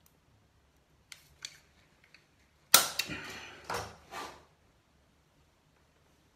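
A sealant cartridge being handled and put down: two light clicks, then a sharp clack a little under three seconds in, followed by a second or so of knocking and rustling.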